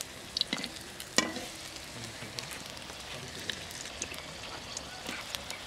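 Battered pakora deep-frying in hot oil, a steady sizzle with scattered crackles and pops, two sharper pops about half a second and just over a second in.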